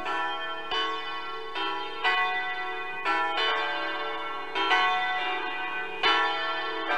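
Church bells ringing, struck at uneven intervals of about a second, each strike ringing on under the next.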